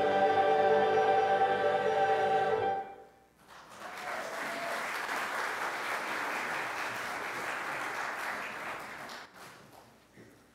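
Church choir holding its final chord with accompaniment, cutting off about three seconds in. After a brief pause the congregation applauds for about six seconds, the clapping fading out near the end.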